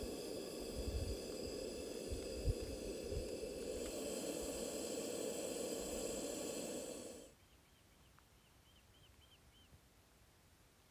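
Steady rushing hiss of a gas camping stove's burner, mixed with wind buffeting the microphone; it cuts off suddenly about seven seconds in. After that it is near silence, with a short run of faint bird chirps.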